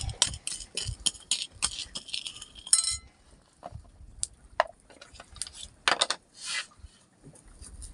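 Metal spoon and ceramic plate clinking as a chili dip is made by hand. Dense crackly rustling fills the first three seconds, then come a few separate clinks and taps.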